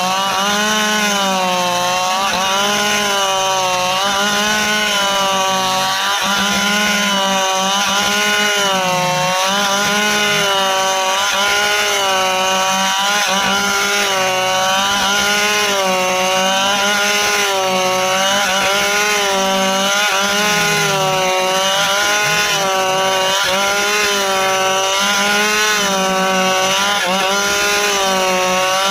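Stihl two-stroke chainsaw running under load, cutting through dry ipê hardwood; the engine note rises and dips about once a second as the chain bites and eases in the hard wood.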